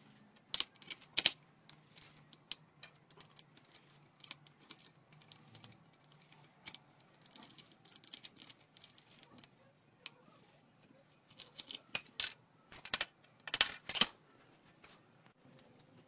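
Metal ceiling-fan parts and hand tools being handled on a workbench: irregular sharp clicks, taps and clinks, in a cluster about a second in and a louder one near the end.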